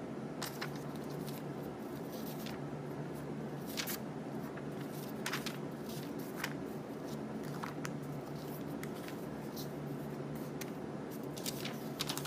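Paper sheets and booklets being handled and slid across each other, with brief rustles and light taps scattered through, over a steady low room hum.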